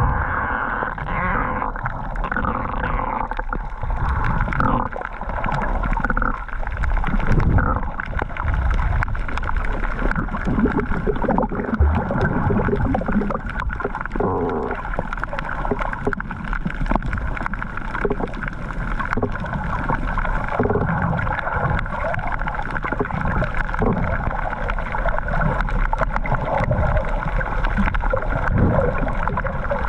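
Underwater sound heard through a submerged camera: muffled gurgling and sloshing of water with irregular low rumbles, over a steady mechanical hum.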